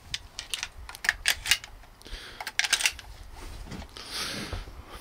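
Quick sharp clicks and knocks of a shotgun and gear being handled, a cluster of them in the first three seconds, with two spells of soft rustling.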